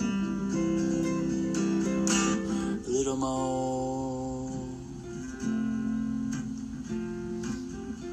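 Acoustic guitar playing strummed chords that ring on, changing chord a few times.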